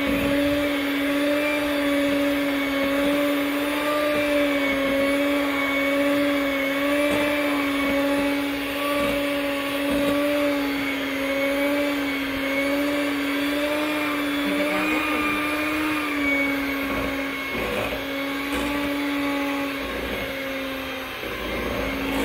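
Electric hand mixer running steadily with its beaters in brownie batter in a glass bowl: an even motor hum whose pitch wavers slightly, dipping briefly near the end.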